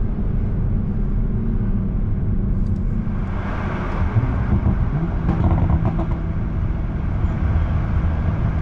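Toyota GR Supra's engine and tyre noise heard from inside the moving car, steady at first, with the engine growing louder about three seconds in.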